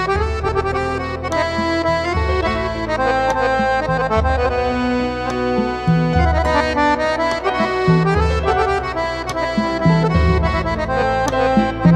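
Live band music: an instrumental passage between sung verses of a song, a melody line played over low bass notes that change about every two seconds.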